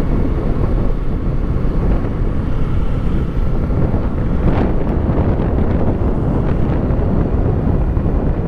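Wind rushing over the microphone of a Kawasaki Eliminator 450 SE riding at speed, with engine and road noise underneath. A brief swish about halfway through, like a vehicle passing.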